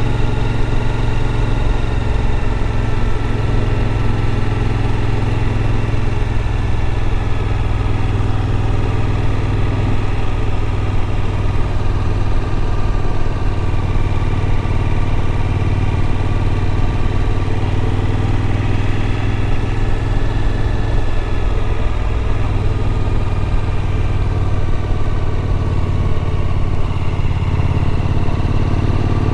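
Suzuki V-Strom motorcycle engine running at low, steady revs, with only slight changes in pitch.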